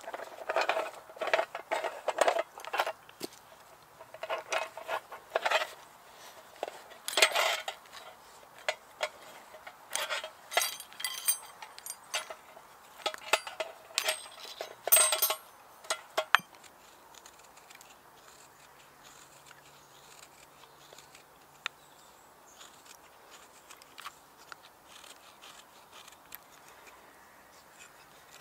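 Metal fire-lighting kit clinking and rattling against other items as a leather pouch is rummaged through, in repeated bursts for about sixteen seconds. After that it goes much quieter, with only faint scattered ticks.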